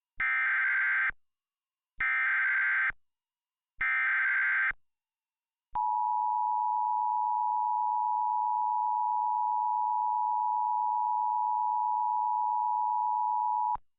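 US Emergency Alert System (EAS) alert tones. Three bursts of the SAME digital data header, each about a second long and a second apart, are followed by the steady two-tone EAS attention signal, held for about eight seconds before it cuts off. Together they open an emergency broadcast alert.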